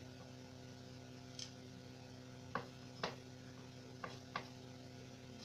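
Kitchen knife shaving the peel off a raw taro corm in quick strokes: about five short, sharp scraping ticks spread through, over a faint steady hum.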